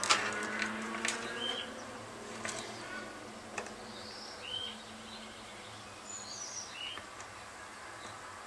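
Light clicks of multimeter test probes being set against the pins of a LiPo battery's balancer plug, mostly in the first second and once more a few seconds in. Faint short high chirps sound at intervals in the background.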